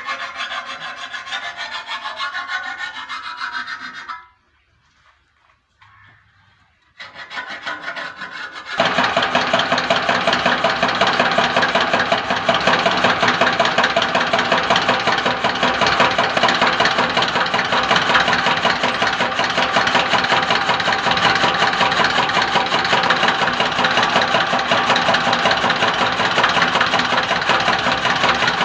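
Fodder-cutting machine chopping animal feed. It starts up about seven seconds in after a short quiet spell, then runs steadily with a fast, even, grinding rasp.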